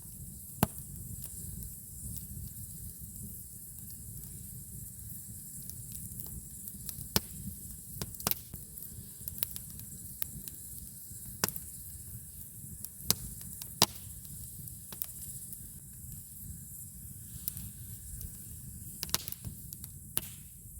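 Wood campfire crackling: a steady low rush of burning with sharp, irregular pops every few seconds.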